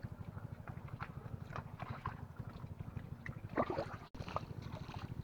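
Splashing and sloshing in shallow water and mud over a small engine running steadily with a rapid low thump. The loudest splash comes just past halfway, and the sound cuts out for an instant about four seconds in.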